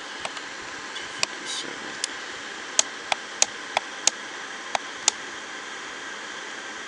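Plastic buttons on top of an Advance 3139 digital alarm clock clicking as they are pressed again and again to step the alarm minutes: about ten short, sharp clicks at uneven spacing over a steady hiss, stopping about five seconds in.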